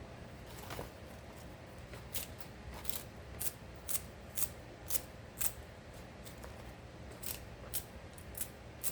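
Leafy greens being cut into pieces: a series of crisp, sharp cuts about two a second, with a short pause in the middle.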